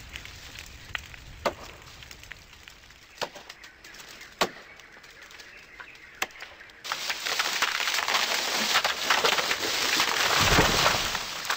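Sharp cracks and knocks of wood in forest clearing, a second or more apart. About seven seconds in, a sudden loud, dense crackling rush takes over, with a low thud near the end.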